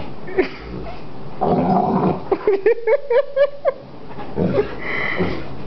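Greater Swiss Mountain Dog growling in rough play, breaking about halfway into a quick run of about eight short yips before growling again.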